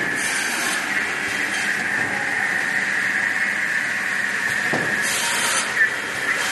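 High-speed cut-off saw running with a steady high whine, with two short hissing bursts as the blade cuts plastic, near the start and about five seconds in, and a brief knock just after the second.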